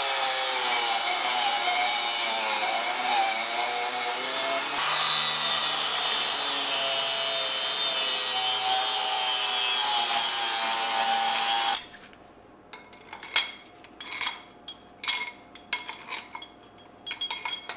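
Angle grinder cutting through a steel bearing-support bracket, its motor whine shifting in pitch as the disc bites into the metal. It stops about twelve seconds in and is followed by a series of light metallic clinks and knocks.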